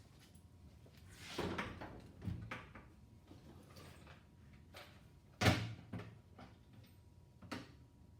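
Scattered knocks and clunks of metal tools and parts being handled and set down on a workbench, with one sharp, louder knock about halfway through.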